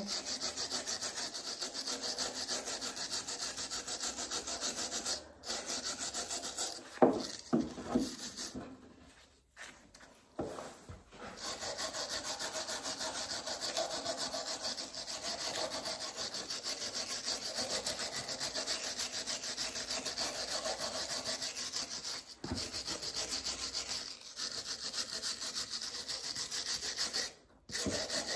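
Hand wire brush scrubbing the knobbed wooden handle of a walking stick in fast back-and-forth strokes, taking off dirt and grime before sanding. The scrubbing stops briefly a few times, with a few louder knocks about seven seconds in.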